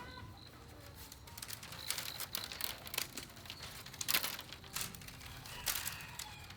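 Bamboo strips being worked by hand: irregular rustling, scraping and sharp cracks, loudest a little after four seconds in. Birds chirp faintly near the start.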